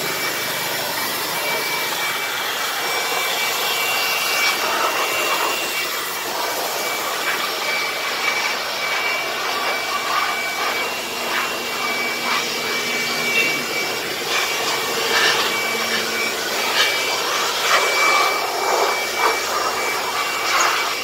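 Handheld electric air blower running at high speed, drying a washed motorcycle: a steady rush of air with a constant high whine from its motor.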